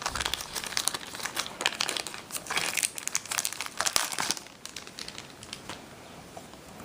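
Packaging being unwrapped by hand, with dense, irregular crinkling and crackling that dies down to faint handling about four and a half seconds in.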